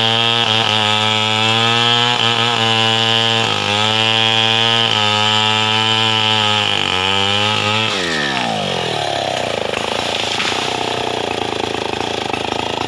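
Stihl 070 two-stroke chainsaw running at high revs while cutting through a gmelina trunk, its pitch dipping briefly a few times. About eight seconds in the throttle is let off and the engine winds down, running on at lower revs.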